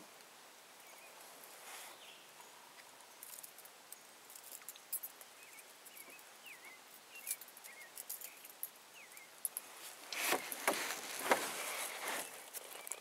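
Quiet lakeside background with faint, short bird chirps scattered through it. About ten seconds in comes a louder run of clicks and rustling handling noise as a small smallmouth bass is brought in and held up on the fishing line.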